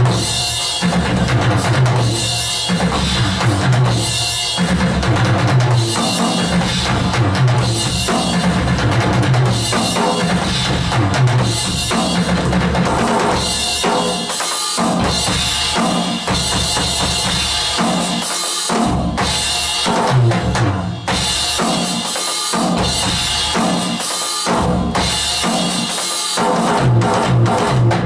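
Roland HD-3 electronic drum kit being played: a continuous beat of bass drum and snare hits, with brief breaks near the middle.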